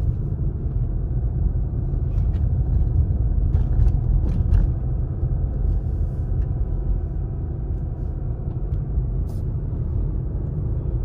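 Steady low rumble of a car's engine and tyres on paved road, heard from inside the cabin while driving, with a few faint clicks.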